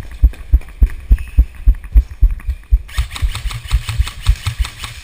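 Regular low thumps, about three and a half a second, with a rattling hiss joining about three seconds in.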